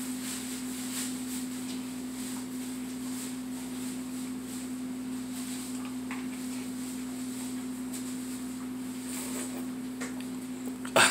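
Steady low electrical hum with faint crinkles from a plastic pickle pouch being handled, and a sharper, louder crackle near the end.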